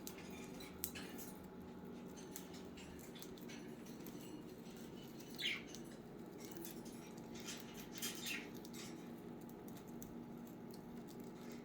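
Budgies give a few short, faint chirps, the clearest about five and a half seconds in and again near eight seconds, over light clicks and scratching from birds at their treats. A steady low hum runs underneath.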